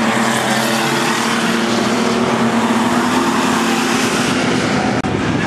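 Several speedway stock car engines running hard together as the cars race around a dirt oval, a loud, steady blend of engine notes. It cuts out for an instant about five seconds in.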